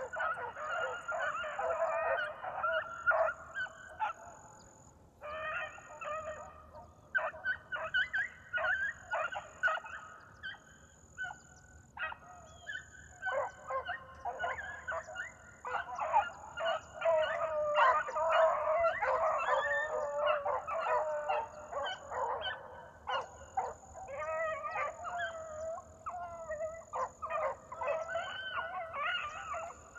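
A pack of beagles baying on a rabbit's track, many voices overlapping in a continuous chorus, dropping off briefly about four seconds in and again around twelve seconds before building back up.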